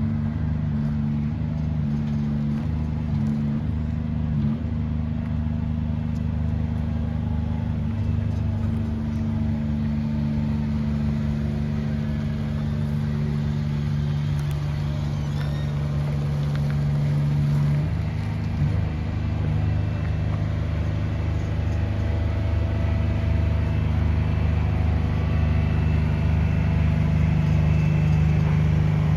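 Heavy truck's diesel engine running steadily at low speed, hauling a heavy load; its pitch shifts about eighteen seconds in and it grows a little louder near the end.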